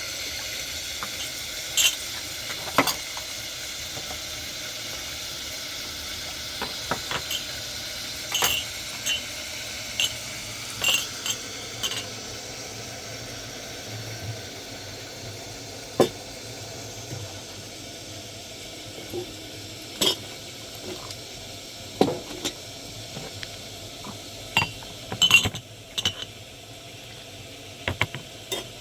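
Steady sizzling hiss that slowly fades, with scattered sharp clinks and knocks of pots, dishes and utensils.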